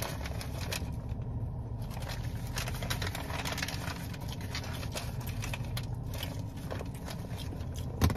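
Paper sandwich wrapper being crinkled and folded by hand: a run of small crackles and rustles, with one sharp knock near the end, over a low steady hum.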